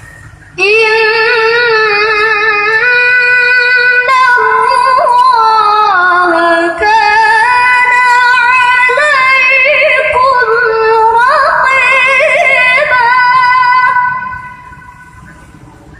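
A girl's voice reciting the Quran in the melodic qira'ah style: one long, ornamented held phrase with a wavering, trilling pitch that sinks in the middle and climbs again, starting about half a second in and fading out near the end.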